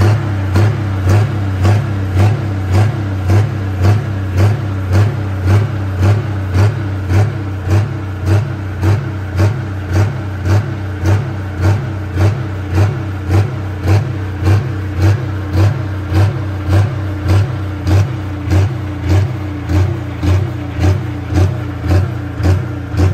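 New Holland T8 pro stock pulling tractor's diesel engine running at a lumpy idle, its note swelling and dipping in a regular pulse about one and a half times a second.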